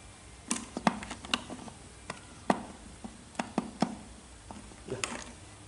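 Irregular sharp plastic clicks and taps, about ten of them, as a USB Bluetooth receiver is fitted into the USB port of an active speaker.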